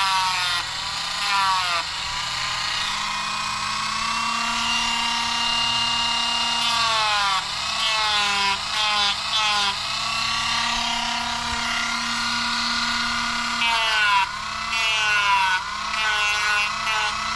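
Dremel rotary tool with a sanding drum grinding a plastic RC buggy suspension arm. Its motor whine dips in pitch over and over as the drum is pressed into the plastic and climbs back as the pressure eases, with a few steadier stretches. It is rounding off a spot on the arm for clearance and cleaning off burrs.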